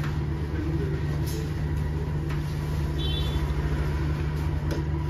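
Steady low hum with a few light clinks of a steel spoon against small steel serving bowls.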